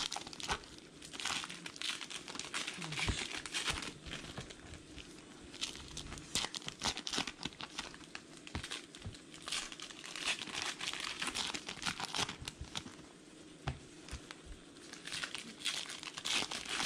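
Foil-and-paper wrappers of 2019 Heritage Minor League baseball card packs being torn open and crinkled by hand, in irregular clusters of crackling.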